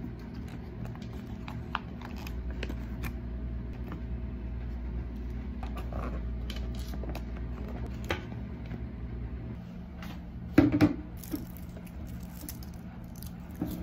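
Clear plastic butter dish and food containers being handled: light clicks and taps of the lid and plastic, with a louder knocking clatter about three seconds before the end, over a steady low hum.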